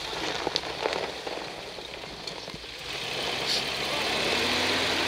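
Nissan Safari Y61's engine running as the 4x4 crawls across a steep side slope, with a few sharp knocks in the first second. The engine grows louder from about three seconds in.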